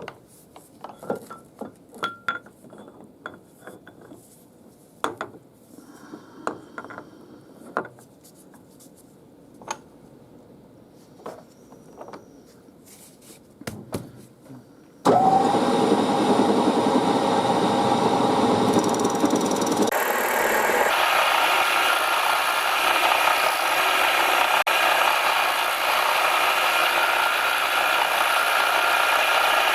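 Metal tools and parts clicking and knocking while brass stock is set up, then about halfway a machine tool starts suddenly and runs loudly, machining the brass; a few seconds later the cutting sound turns brighter and hissier.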